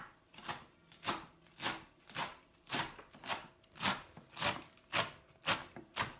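Kitchen knife chopping vegetables on a cutting board in a steady rhythm, about two cuts a second.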